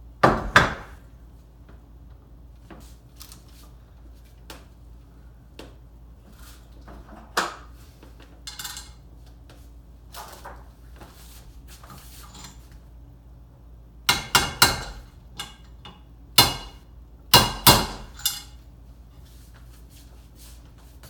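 Sharp metallic knocks come in short clusters: one about half a second in, a few single ones near the middle, and a quick run of strikes from about fourteen to eighteen seconds in, some of them ringing briefly. They are hammer taps seating a bearing into a heated aluminium motorcycle engine case.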